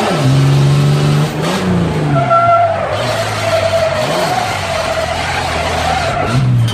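Chevrolet Omega's engine revving up and down as heard inside the cabin during a drift, with the tyres squealing steadily from about two seconds in until shortly before the end.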